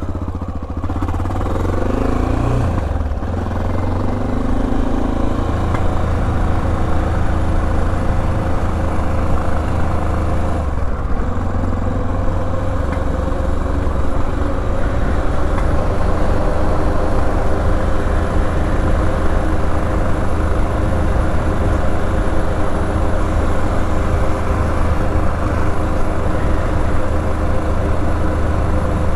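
Honda XR650L's single-cylinder engine pulling away and revving up through the gears in the first few seconds. There is another gear change about eleven seconds in, then it settles into steady running at road speed.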